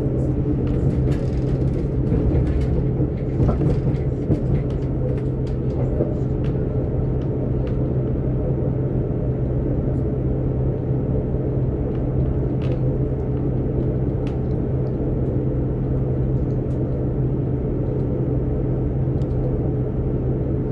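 British Rail Class 158 Sprinter diesel multiple unit running at speed, heard from inside the carriage: a steady drone and rumble, with a few faint clicks in the first few seconds.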